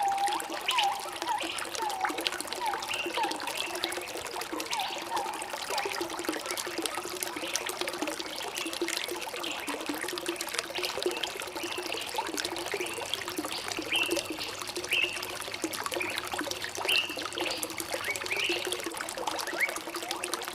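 Stream water trickling and gurgling steadily, with many short bubbling plinks in the first few seconds.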